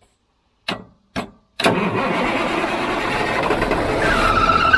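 Old semi-truck's diesel engine cranking over on the starter after running out of fuel, with air drawn into the fuel system and no primer to bleed it. Two clicks come first, then the steady cranking, with a high squeal rising near the end.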